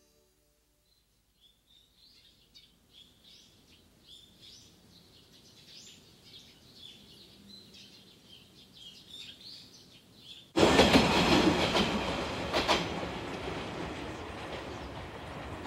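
Faint, irregular high chirping, then about ten seconds in a train suddenly rushes past loud and close, a dense steady rush with a few sharp clacks of the wheels.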